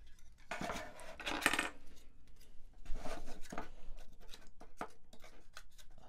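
Circuit-board panels of a Modal Craftsynth kit being handled and fitted together: scattered clicks and short scrapes, with a longer rattling scrape from about half a second to a second and a half in.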